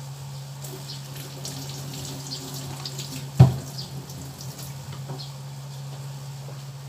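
Water running from a kitchen tap into a sink, with small clinks, over a steady low hum. A single sharp knock about three and a half seconds in.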